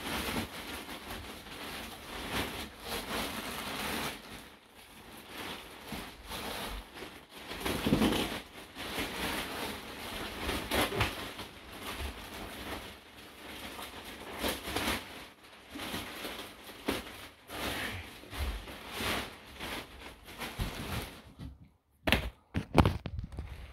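Plastic wrapping crinkling and rustling irregularly as it is pulled off a compressed bed-in-a-box hybrid mattress. A few sharp knocks come near the end.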